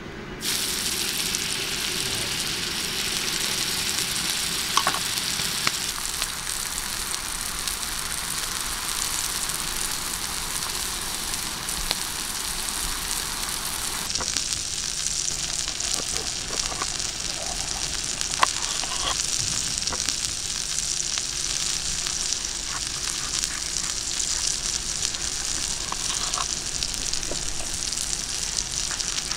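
Steady sizzling of liquid on a hot stone slab set over embers. In the second half it softens a little, and a few light knocks sound through it.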